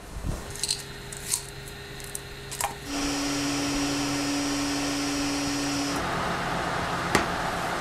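Hot-air rework station blowing a steady hiss with a humming tone while an ASIC chip is desoldered and replaced on the hash board. It starts about three seconds in after a few light clicks; the hum drops away about six seconds in while the hiss carries on.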